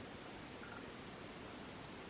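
Faint, steady hiss of background ambience, with a brief faint high note just over half a second in.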